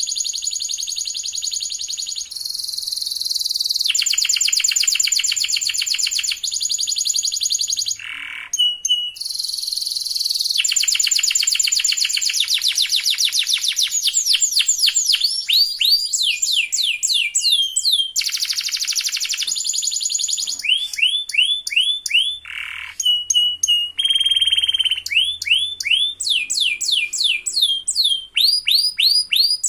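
White domestic canary singing a long song of rapid rolling trills alternating with runs of quick sweeping whistled notes, broken by short pauses.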